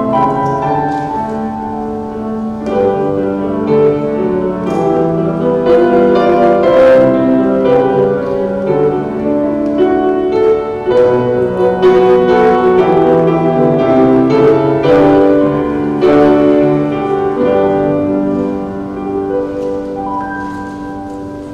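Grand piano played solo, a slow piece of sustained chords and melody, growing softer over the last few seconds.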